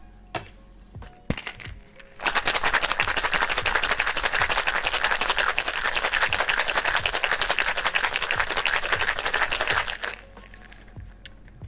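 Ice rattling inside a metal tin-on-tin cocktail shaker, preceded by a couple of knocks as the tins are fitted together, then shaken hard for about eight seconds and stopping near the end. This is the wet shake with ice that chills and dilutes the egg-white cocktail.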